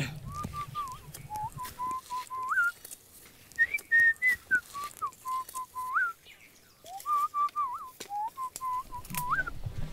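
A person whistling a tune in three phrases of steady held notes, each ending in a quick upward flick.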